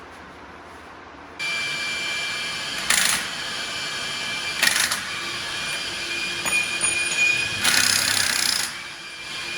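Pneumatic impact wrench running for about seven seconds, a steady high whine with three louder surges, the longest near the end. It starts suddenly about a second and a half in.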